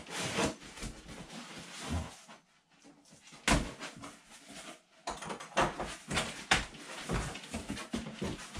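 Cardboard shipping box being torn and pulled open by hand: irregular scraping, ripping and rustling of cardboard, with a sharp knock about three and a half seconds in.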